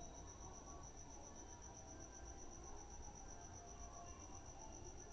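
Faint, steady, rapidly pulsing high-pitched chirping of a cricket, over a low background hum.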